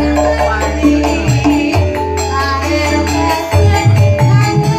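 Live band music played loud through a PA, with long held bass notes, melody instruments and light percussion, accompanying a sinden singing into a microphone.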